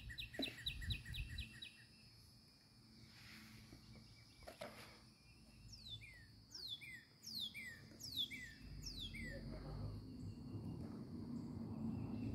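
Wild songbirds singing: a fast trill of repeated high chirps for the first couple of seconds, then a series of about six clear, down-slurred whistled notes through the middle.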